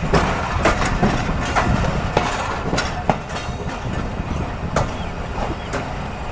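Passenger train rolling along the track: a steady low rumble with sharp, irregular wheel clicks over rail joints, about one or two a second.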